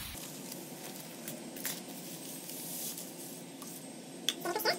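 Spoon stirring sugar into hot tea in a glass jar: faint liquid swirling, with a few light knocks of the spoon against the glass.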